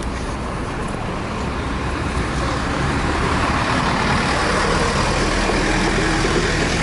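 A motor vehicle passing along the street, its engine hum and tyre rush growing gradually louder.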